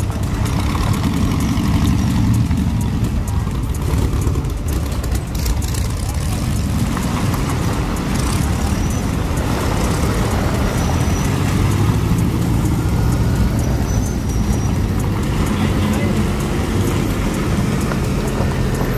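Motor trike engines running as a procession of trikes rolls slowly past one after another, a steady overlapping low engine sound.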